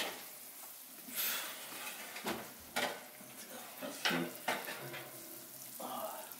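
An oven door being opened and a hot metal baking pan drawn out over the oven rack: a run of short metallic clinks and scrapes, about one every second.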